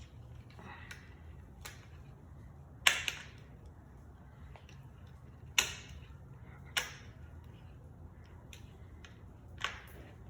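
Four sharp clicks and knocks from hand tools and parts being handled on a chainsaw, the loudest about three seconds in, over a low steady hum.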